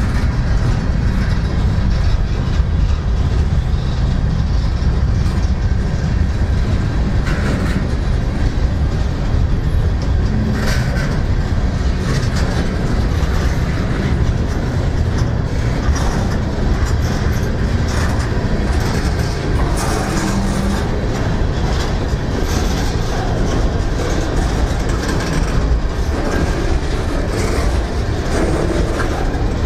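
CSX freight train's cars rolling past: a steady low rumble of steel wheels on rail, with scattered clicks as wheels pass over rail joints.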